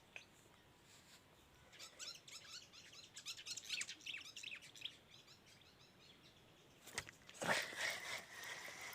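Small birds chirping in quick, short high notes for a few seconds, then after a click a louder sound with a steady high whine near the end.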